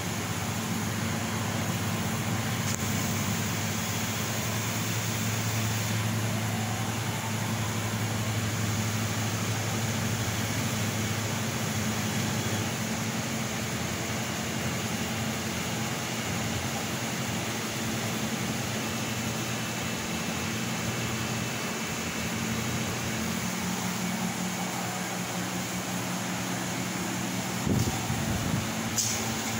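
Bao Yuan Tong CNC laser cutting machine running mid-cut: a steady fan-like whoosh with a low hum, as the machine's blowers run while the head cuts. A couple of short knocks near the end.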